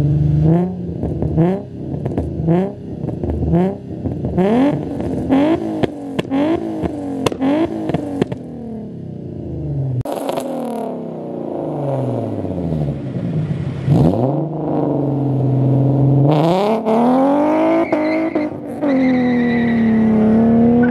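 Nissan 350Z's V6 engine revved in a string of quick blips for the first eight seconds or so. After a break about ten seconds in come longer revs that climb and drop again.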